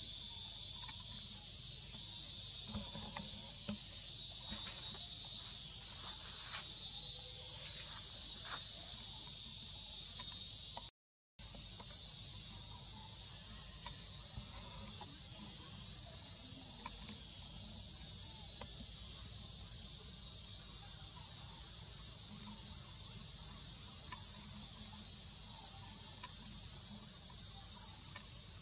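Steady high-pitched chorus of insects in forest, with a low rumble underneath; the sound cuts out completely for about half a second around eleven seconds in.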